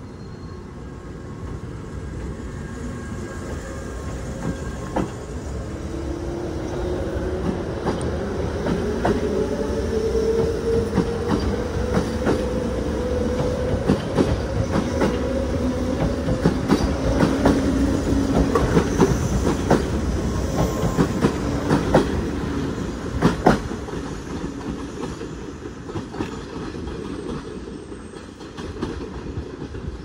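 JR West 381 series electric limited express pulling out and accelerating past: a rising whine and rhythmic clicking of wheels over rail joints. It grows louder as the cars go by, with the sharpest clicks a little past the middle, then fades as the train moves away.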